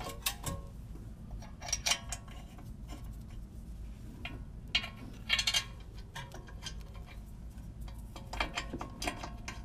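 Irregular metal clinks and clanks of an Acura MDX front brake caliper and its bolts being handled and fitted back over the rotor, coming in a few short clusters.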